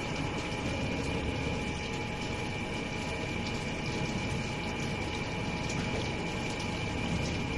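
Poultry-gizzard cuticle-removing machine running steadily: its small electric motor turning the toothed stripping rollers, with rinse water running over them. Even mechanical noise with a constant high whine.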